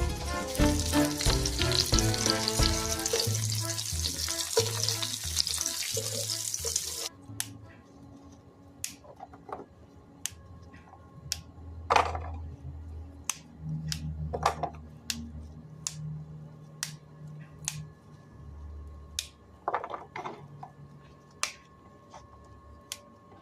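Food sizzling in a frying pan under background music for about seven seconds, cut off abruptly. After that comes a quieter stretch of scattered sharp clicks and a few knocks over a low hum.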